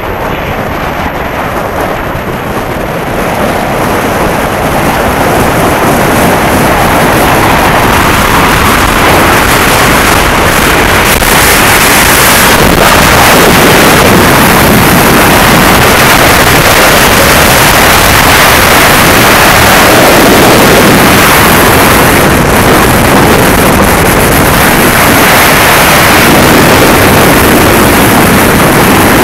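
Wind rushing over the microphone of a skier's point-of-view camera on a fast downhill run, mixed with the skis running on hard-packed snow. It builds over the first few seconds as speed picks up, then holds steady and loud.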